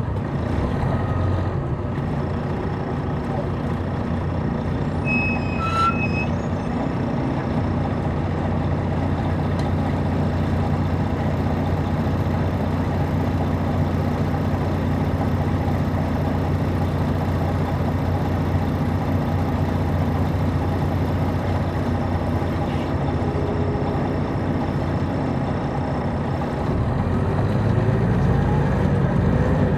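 Detroit Diesel Series 60 diesel engine of a 2002 MCI D4000 coach, heard from inside the bus, running at a steady speed. About five seconds in comes a brief high two-note beep. Near the end the engine gets louder and climbs in pitch as the bus picks up speed.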